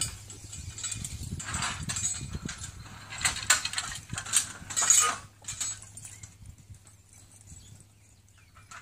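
Metal clinking and rattling from a horse-drawn disc harrow's hitch and the team's harness chains as the tongue is handled, in a run of short clanks over the first five seconds or so, then quieter.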